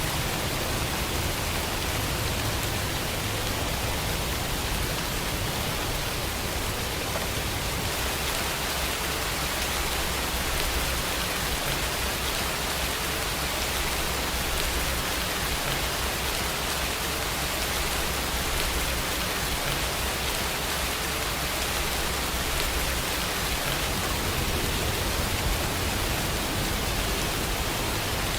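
Steady rain falling, a dense even hiss with no break.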